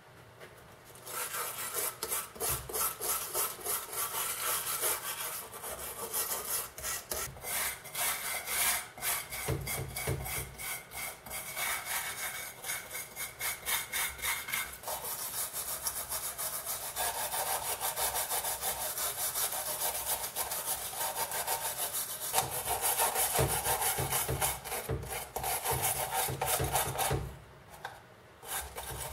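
Rapid back-and-forth scrubbing and scraping of a hand tool against the crusted aluminium cup, knocking off dried soil and corrosion. The strokes run on with a short pause about a second before the end.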